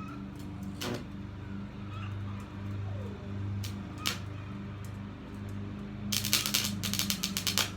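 Arc welder humming steadily, with a few sharp clicks. About six seconds in, a rapid crackling burst starts as the electrode is struck against the metal to start an arc that keeps sputtering instead of catching.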